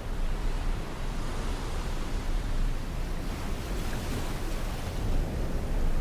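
Sea surf washing onto a sandy beach: a steady rush with a deep rumble underneath. A wave's wash swells and brightens through the middle, then eases off.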